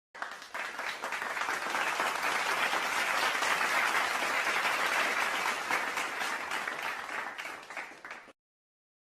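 Crowd applause: many hands clapping, swelling over the first couple of seconds, holding, then dying away and cutting off about eight seconds in.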